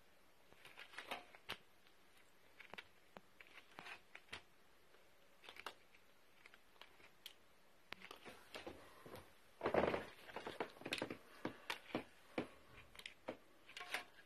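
Pet rabbit playing and scuffling: irregular rustles, scratches and small clicks, with a louder burst of rustling about ten seconds in.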